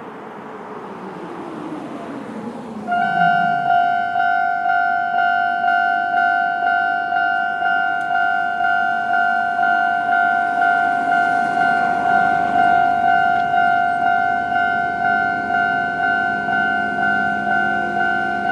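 Japanese railway level-crossing alarm of the older electronic type, cutting in about three seconds in and repeating one ringing ding a little under twice a second: the signal that a train is approaching. Before it, a sound falls in pitch, and lower tones join the alarm near the end.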